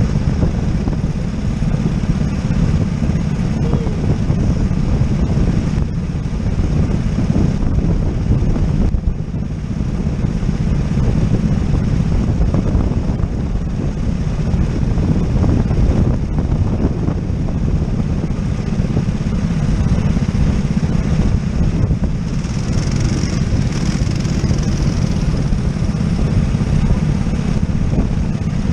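Rental go-kart engines idling together while the karts sit still in a queue, a steady low rumble with no revving.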